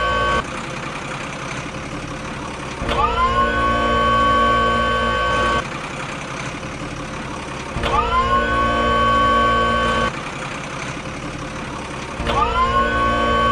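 Looped vehicle engine sound effect: a whining engine note that rises in pitch and holds for a couple of seconds, then cuts abruptly to a quieter rough rumble, the cycle repeating about every five seconds.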